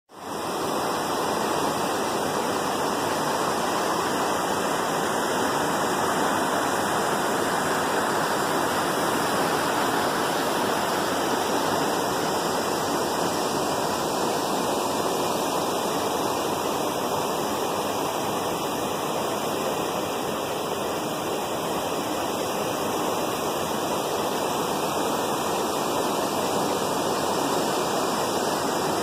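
Steady rushing-water noise, fading in quickly at the start and then holding even, without the rise and fall of separate waves.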